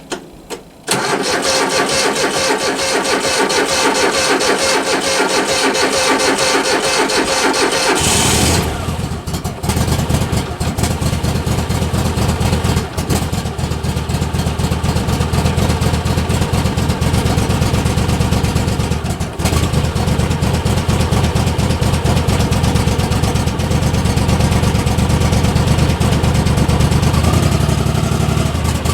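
An engine starts suddenly about a second in and runs; about eight seconds in its sound drops to a deeper, heavier note and it keeps running steadily.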